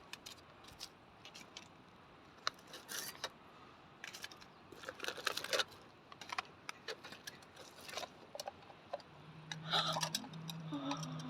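Faint, scattered clicks and light clatter of small objects being handled, with a low steady hum joining about nine seconds in.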